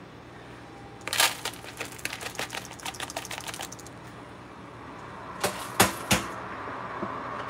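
Rapid crackling clicks for about three seconds as flattened-rice (poha) flakes are tipped from a wire-mesh strainer over a pan of hot oil. Then come three sharp knocks of the strainer, and a hiss of the oil frying that grows louder near the end.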